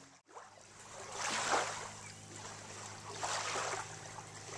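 Small waves lapping at a shallow sound-side shoreline, washing in twice, about a second and a half in and again near three seconds, over a faint steady low hum.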